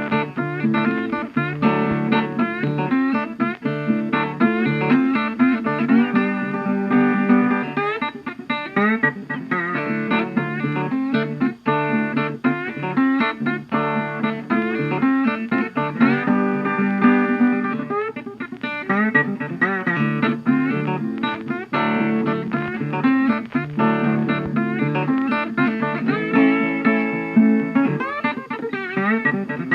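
Background music: a guitar track with plucked and strummed notes in a bluesy style.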